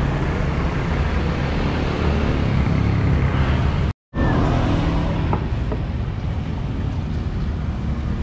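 Street traffic noise: motorbikes and cars passing on a city road, a steady low rumble. It cuts out briefly about four seconds in, then the same kind of roadside traffic noise goes on.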